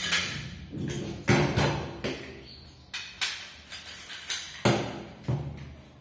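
Knocks and clatter of a metal trolley tube and corner piece being handled and fitted together on a wooden table: a series of sharp knocks with brief ringing.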